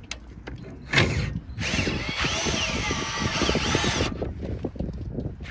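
A motor drives an Airstream stabilizer jack for about two and a half seconds, its whine rising and falling in pitch as it runs. A sharp knock comes shortly before it starts.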